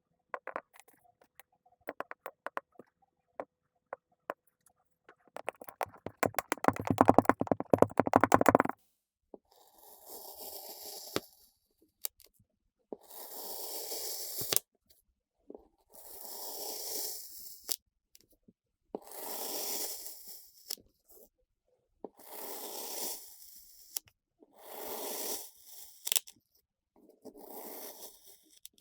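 Kinetic sand crackling and crunching, densest from about six to nine seconds in. It is followed by seven slow, gritty strokes of sand being cut or scraped, each lasting a second or more and coming about every three seconds.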